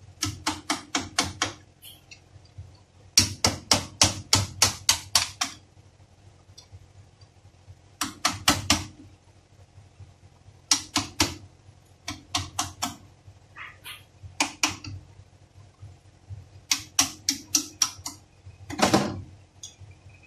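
Light hammer taps on a steel punch held against the end of a steering rack clamped in a vise, in quick runs of about five or six taps a second with short pauses between runs. A single longer, duller sound comes near the end.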